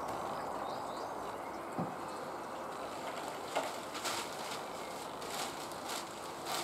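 Steady outdoor background noise, with a few short clicks and knocks scattered through it.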